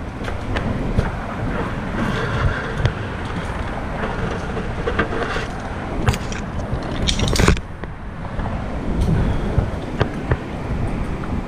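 Wind buffeting the microphone with a steady low rumble, broken by scattered short snaps and clicks. A brief louder burst of noise comes about seven seconds in.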